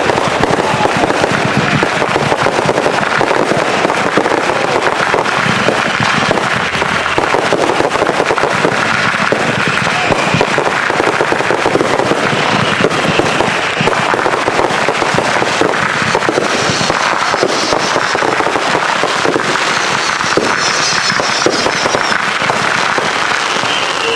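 Consumer firework cakes and roman candles firing in a rapid, continuous barrage of shots and bursts, with no let-up in loudness.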